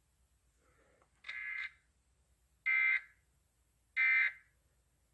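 Burk EAS encoder sending the digital header of a weekly test: short, even bursts of warbling data tones, three of them about a second and a half apart, starting just over a second in, the first quieter than the next two.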